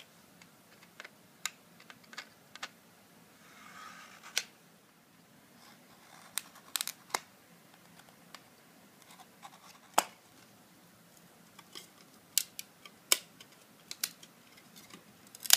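Utility knife scoring a thin clear plastic CD case cover: a soft scrape of the blade about four seconds in, and scattered sharp clicks and ticks as the knife and the scored plastic are worked.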